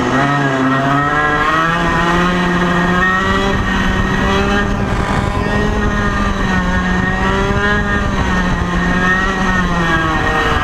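1995 Ital Sistem SL21 100cc two-stroke kart engine, exhausting through an old TKM pipe, running at high revs under load on track. Its pitch climbs about a second in, holds high along the straight, then drops near the end as the kart slows for the next bend.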